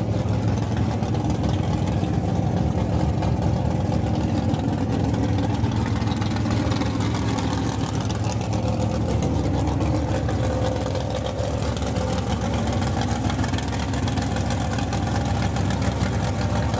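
Mega truck's engine idling steadily.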